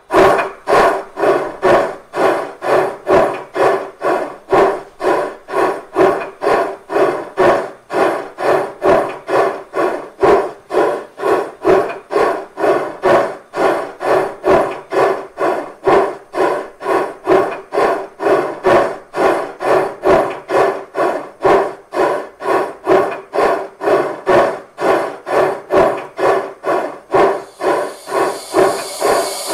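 Sound electronics of a Gauge 1 brass model of DR steam locomotive 18 201 playing the running sound of a steam engine's exhaust through the model's loudspeaker: an even chuffing of about two beats a second. Near the end the chuffs give way to a steady steam hiss.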